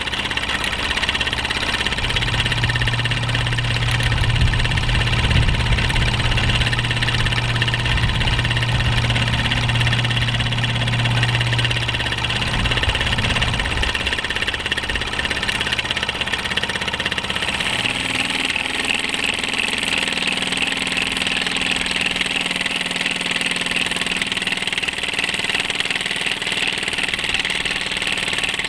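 Bowman M101 model steam engine running steadily. Its single horizontal cylinder drives a heavy brass flywheel, and its beat sounds like an old English motorcycle. About halfway through, the low hum drops away and a steady higher hiss comes to the fore.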